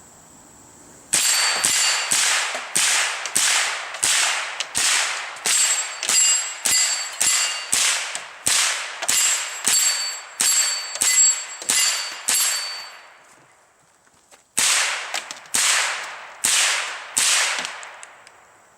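Smith & Wesson M&P 15-22 semi-automatic .22 LR rifle fired rapidly, about two shots a second, each shot followed by a metallic ring from hits on the steel plate. A string of about two dozen shots, a pause of a couple of seconds, then five more until the magazine runs empty.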